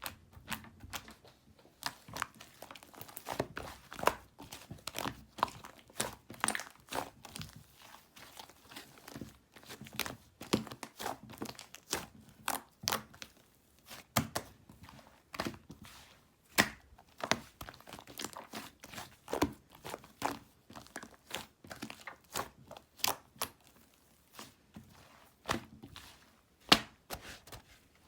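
Hands squishing, pressing and stretching a homemade clay-type slime, giving irregular sticky crackles and little pops several times a second. The slime's base is runny and clings to the hands.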